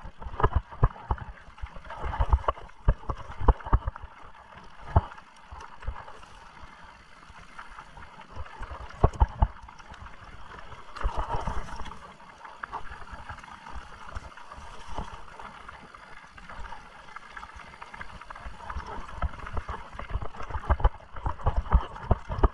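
Mountain bike rolling over rough trail, with a steady rush of tyre and air noise and many irregular knocks and jolts from the bike.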